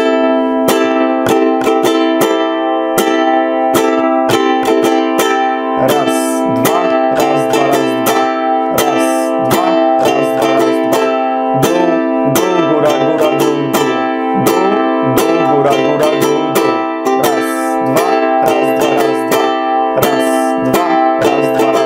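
Ukulele strummed in a steady repeating down, down, up, up, down, down pattern (the 'fast strum'), one chord ringing throughout.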